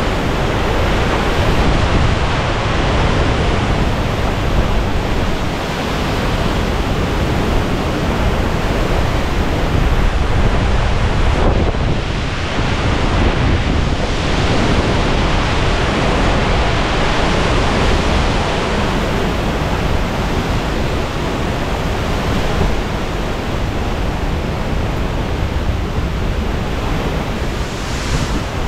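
Hurricane-force eyewall wind blowing hard: a loud, unbroken rush with heavy low buffeting on the microphone.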